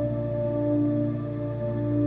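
Background music: slow ambient music with sustained pad chords over a steady low drone.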